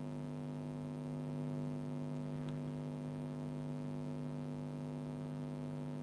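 Steady low electrical mains hum with a stack of even overtones.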